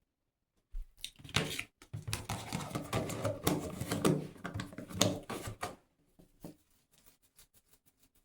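Close handling sounds of hair care: a dense run of rustling and light clicks for about five seconds, then a few scattered soft clicks.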